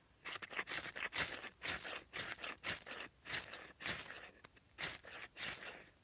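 A knife scraped down a ferrocerium rod again and again, about two strokes a second. Each stroke throws sparks into a nest of wood shavings to light the tinder.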